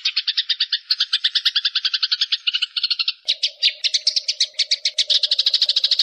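Rapid pulsed chirring trill, about a dozen pulses a second, from a songbird-training (masteran) recording of calling insects and birds. About three seconds in the caller changes: a low steady hum starts underneath and the pulses go higher.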